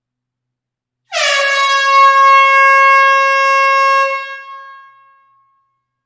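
Air horn sounding one long blast about a second in. It is a steady, bright pitched tone with a brief dip in pitch as it starts, held for about three seconds, then dying away over a second or so.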